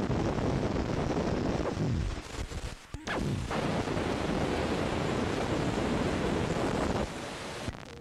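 Wind buffeting the microphone: a loud, even rushing noise that drops away for about a second some two seconds in and stops about seven seconds in.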